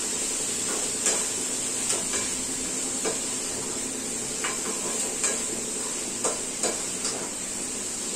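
Metal spatula stirring diced yellow pumpkin in a kadai, clinking against the pan now and then, over a steady frying sizzle.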